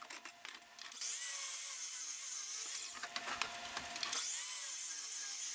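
Sliding compound miter saw running and crosscutting a 3-inch-thick hard maple leg blank. The saw comes in about a second in as a high whine that slides down in pitch and climbs again partway through the cut.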